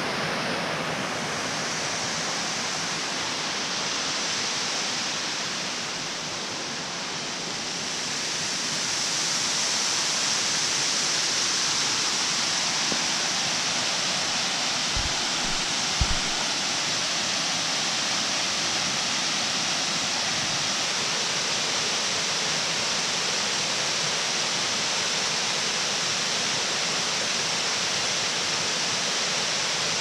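Moss Glen Falls, an 85-foot cascading waterfall, rushing in a steady hiss. It swells a little about eight seconds in, and two brief low thumps come about halfway through.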